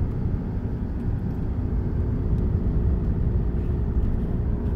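Car engine and tyre-on-road rumble heard from inside the cabin while driving slowly uphill on a winding road: a steady, low drone.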